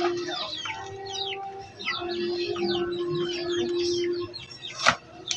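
Small birds chirping and twittering in quick, falling notes, over a steady low drone that comes and goes. A single sharp click, like metal parts knocking together, is heard near the end.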